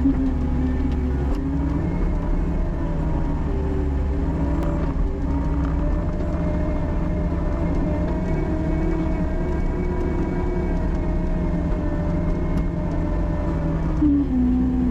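Diesel engine of an earthmoving machine running steadily, its pitch wavering a little now and then.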